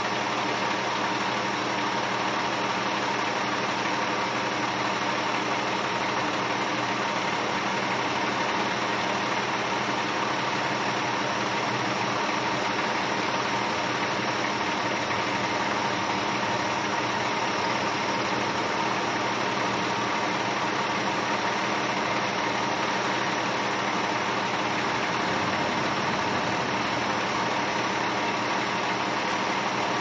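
Ready-mix concrete truck's diesel engine idling steadily.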